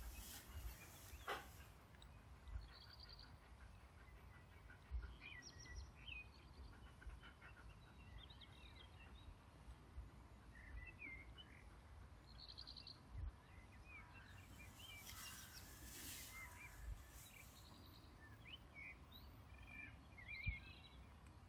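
Faint birdsong: scattered chirps and short warbled phrases from small birds over a quiet outdoor background, with a few soft low thumps and a brief patch of hiss about fifteen seconds in.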